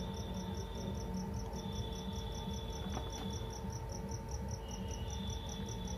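Cricket chirping steadily in a rapid even pulse of about six high chirps a second, over a low hum and faint steady tones. There is one faint click about halfway through.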